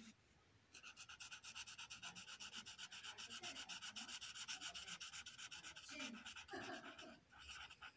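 Marker scribbling back and forth on paper, shading in a drawn wing: a fast, even rhythm of about five or six scratchy strokes a second that starts about a second in and stops near the end.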